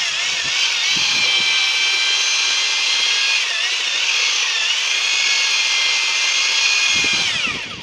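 Electric drill-mixer with a paddle stirring tile adhesive, its motor whining steadily. The pitch dips briefly about halfway through as the paddle loads up, then falls away as the motor winds down near the end.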